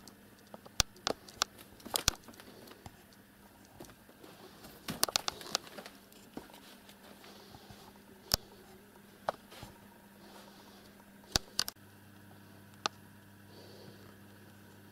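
Irregular sharp clicks and taps, with a quick cluster of them about five seconds in, over a faint steady hum.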